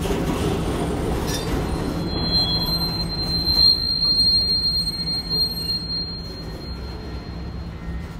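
Railroad cars rolling by with a low rumble and a long, high, steady squeal of steel wheels on the rail. The squeal starts about a second in and fades away near the end.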